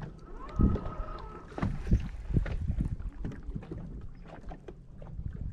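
Choppy water slapping against the hull of a bass boat in a light wind, with soft thumps and small clicks. About half a second in, a short whirring whine rises, holds for about a second and drops away.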